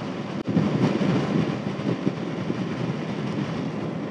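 Honda VFR800 motorcycle's V4 engine running steadily at road speed, with wind rushing over the microphone. The sound drops out for a split second just under half a second in.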